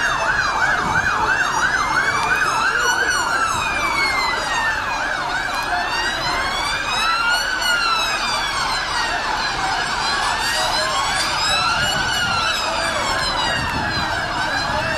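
Police vehicle sirens, more than one at once: a slow rising and falling wail with a fast yelp over it that stops about three seconds in, then two slow wails overlapping out of step.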